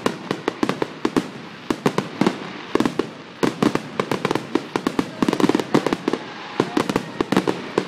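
Fireworks finale: a rapid barrage of aerial shell bursts, many sharp bangs a second with crackle between them, coming thickest about halfway through.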